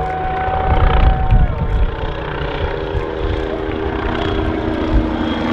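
Red Bull MBB Bo 105 aerobatic helicopter flying overhead: low rotor-blade chop under a turbine whine, with the whine dropping in pitch about a second and a half in.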